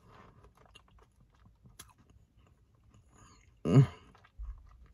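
Faint chewing of a soft frosted cookie, with small wet mouth clicks. About three and a half seconds in the eater gives one short hum, and a soft low thump follows near the end.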